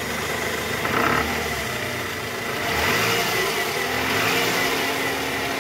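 A 2009 Toyota Harrier's 2AZ-FE 2.4-litre four-cylinder engine running with the AC on and in gear, its revs rising briefly about three seconds in. The mechanic takes the rough 'krrr' noise it makes under this load to be the sign of a worn, loose balancer shaft in the oil pan.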